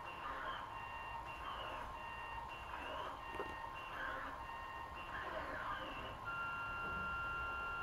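Delta 3D printer's stepper motors whining through a run of short moves as the effector probes points across the bed during auto-calibration. The tones switch pitch about every half second with short rising glides as each move starts, then settle into two steady tones near the end.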